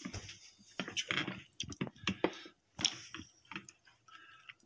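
Metal spoon stirring thick soup in a ceramic bowl: scattered light clicks and scrapes of the spoon against the bowl.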